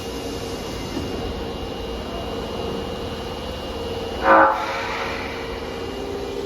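Osaka Metro subway train moving through an underground station, a steady rumble with a held electric tone from its traction motors. A short blast of the train's horn sounds about four seconds in.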